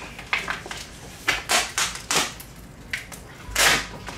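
A taped-down TV backlight reflector sheet being peeled up off the LED strips, giving a series of short rustles as it lifts, the loudest near the end.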